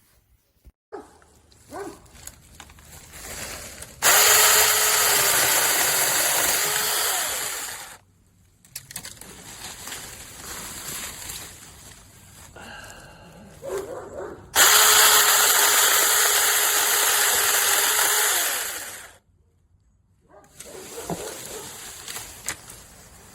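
Battery-powered 6-inch mini chainsaw running in two bursts of about four seconds each, a steady high-pitched whine, with quieter handling noises between the runs.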